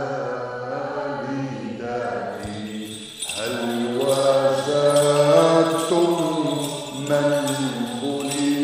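Voices singing a slow chanted liturgical hymn over a steady low held note. From about two and a half seconds in, a faint regular high clicking joins.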